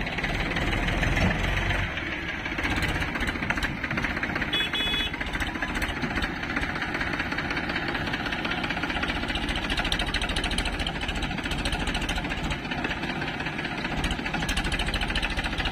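Powertrac farm tractor's diesel engine running under load as it pulls a trolley loaded with sand, with a fast, even beat. A backhoe loader's diesel engine runs close by.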